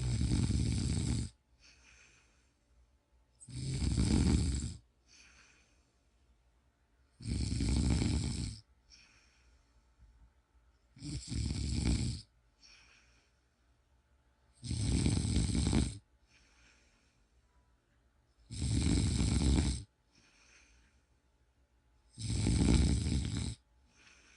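A person snoring steadily: seven loud snores, one about every three and a half to four seconds, each followed by a faint breath.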